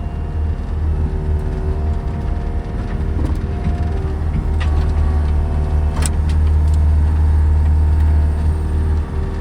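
Engine running steadily with a deep low hum, getting a little louder in the second half, with a sharp click about six seconds in.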